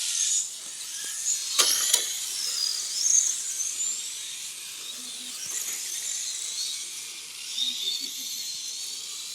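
High-pitched whine of electric radio-controlled race cars' motors, rising and falling in pitch as the cars accelerate and brake around the track. Two sharp clicks sound about two seconds in.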